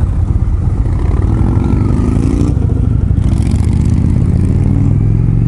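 Indian Springfield motorcycle's air-cooled V-twin engine pulling away and accelerating, its pitch rising, dropping once near the middle as it shifts up, then rising again.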